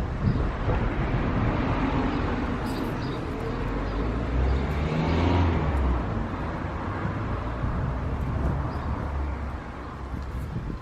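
A motor vehicle passes, its engine and tyre noise swelling to the loudest about halfway through and then fading, over a steady low rumble.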